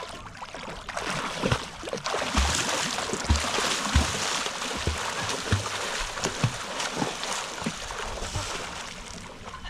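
Water splashing and churning, a steady rush with irregular low knocks and thuds mixed in.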